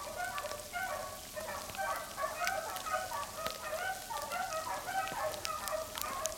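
A pack of beagles baying on a rabbit's trail: many short, overlapping bays from several hounds at once, keeping up throughout. Scattered sharp ticks run through it, like frozen rain hitting a coat.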